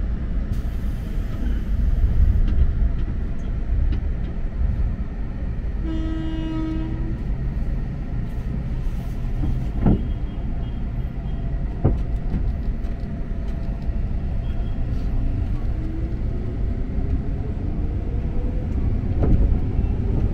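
Electric commuter train running with a steady rumble. A horn sounds once, for just over a second, about six seconds in. Two sharp clacks come a little later, and a whine rises in pitch over the last few seconds.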